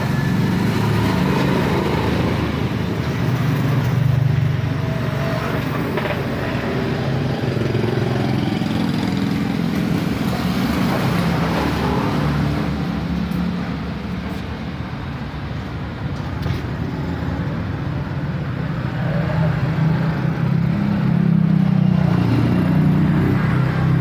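Motor vehicle engines running steadily, like road traffic, swelling and easing over the stretch.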